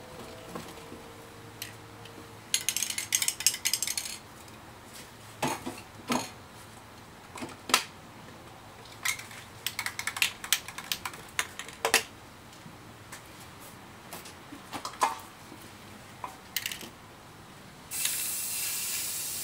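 Aerosol spray-paint can rattling in short bouts as it is shaken, the mixing ball clicking against the metal, with a few scattered knocks between. Near the end a steady hiss of paint spraying from the can starts.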